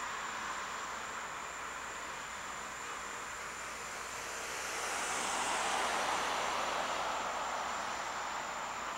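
Steady outdoor background noise that swells and fades about five to seven seconds in, like a vehicle passing, over a faint steady high whine.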